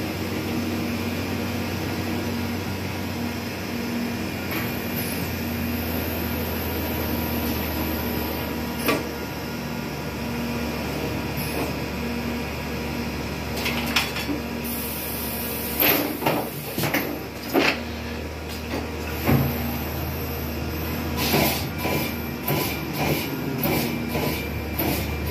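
Amada LC1212 laser cutting system and its automatic sheet loader running: a steady machine hum with a low tone pulsing about once a second. In the second half come a series of sharp knocks and clanks and a short hiss of air.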